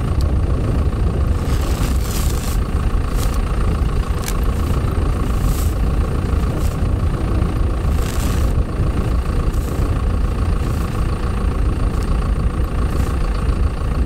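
A farm tractor's engine idling steadily, with a few short, scratchy rustles as net wrap is worked off a round hay bale.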